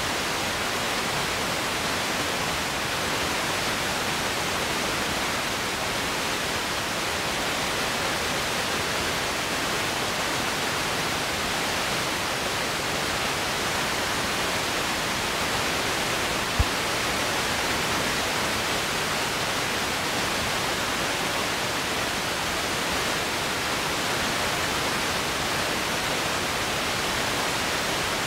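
Steady, even hiss of static with no voice coming through, though the host is visibly talking: his microphone feed has dropped out or been muted. A single sharp click about sixteen seconds in.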